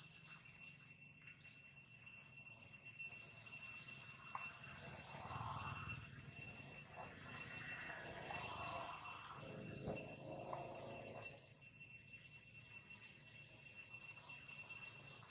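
Insects chirping in repeated bursts of about a second each, over a steady high insect whine.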